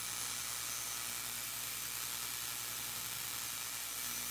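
Rotary spark gap arcing continuously as its blower motor spins the electrodes: a steady hiss with a low electrical hum underneath.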